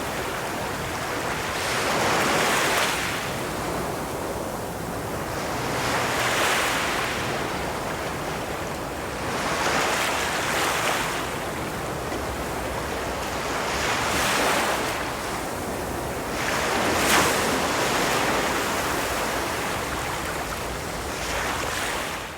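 Ocean surf on a beach: waves breaking over a steady wash, swelling and falling back about every four seconds, with one sharper crash about two thirds of the way through.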